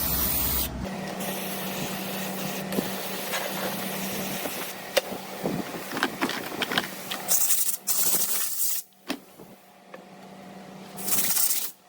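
Short hissing blasts of spray used to clean an automatic transmission part, one about seven seconds in and another near the end, with clicks and knocks of the part being handled in between over a steady low hum.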